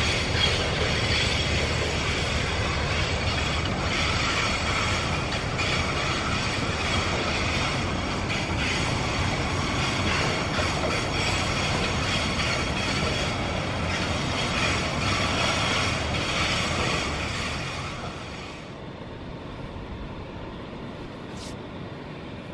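Grain train's hopper wagons rolling past, a steady rumble of wheels with a high steady squeal and scattered clacks. About eighteen seconds in it drops away to a quieter steady hiss.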